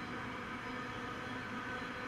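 Intermodal container freight train's wagons rolling past: a steady rumble of wheels on rails, with a faint whine over it.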